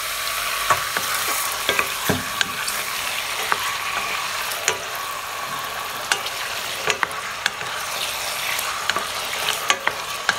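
Chicken pieces sizzling as they fry in hot oil with ginger garlic paste in a stainless steel pot. A spatula stirs them, scraping and knocking against the pot now and then.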